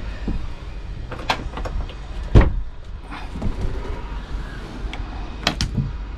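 Clicks and knocks of a flush stainless ring pull being flipped up and a teak-decked engine hatch being unlatched and lifted open on its gas strut. One louder low thump comes about two and a half seconds in, over a steady low rumble.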